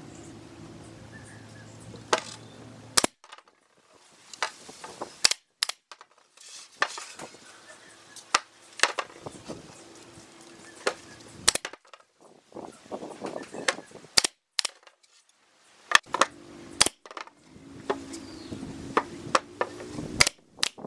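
Pneumatic nail gun firing brads into pine boards: sharp single shots scattered throughout, several in quick pairs, with quieter handling of the wood between them.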